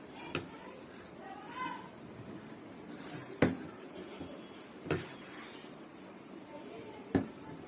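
Four sharp knocks, spaced one to three seconds apart, over a low steady background hiss, with a brief faint voice-like sound between the first two.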